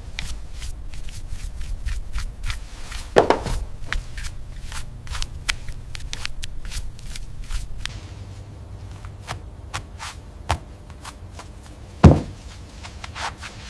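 Irregular small clicks and taps of handling noise, with two louder thumps, one about three seconds in and one near the end.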